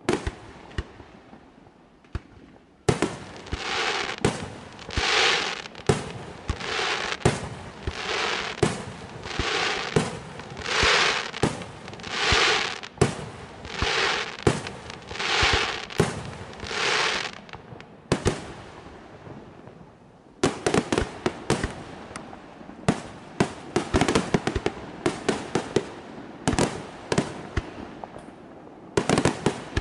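Aerial fireworks display: a bang at the start, then from about three seconds a regular run of shell bursts a little under a second apart, each a swelling hiss with sharp reports. After a short lull, from about twenty seconds in, a dense rattle of sharp bangs and crackles.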